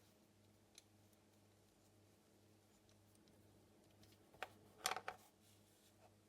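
Near silence with a few faint plastic clicks from a handled fidget toy: one about a second in, then a quick cluster of three a little past two-thirds of the way through.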